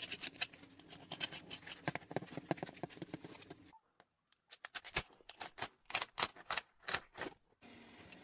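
Knife crunching through the crisp crackling skin of a roast pork roll: rapid crackles and snaps, broken by a short silent gap about four seconds in. A faint steady hum takes over near the end.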